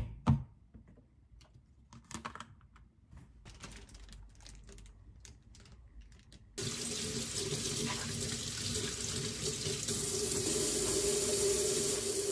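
Two sharp knocks near the start, then a few seconds of light plastic-bag crinkling. About six and a half seconds in, a kitchen tap is turned on and runs steadily into a stainless steel sink, water splashing over chili peppers being rinsed.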